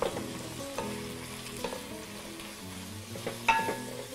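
Sliced zucchini and green beans sizzling in oil in a stainless steel sauté pan while a wooden spoon stirs them, knocking and scraping against the pan every second or so.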